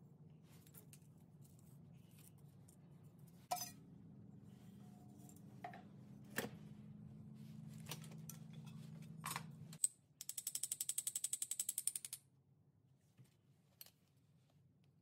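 Scattered small metallic clicks and ticks as tiny steel fish hooks are handled at a square steel tube canister, over a steady low hum that stops about ten seconds in. Near the end comes a fast, even run of clicks lasting about two seconds, the loudest sound here.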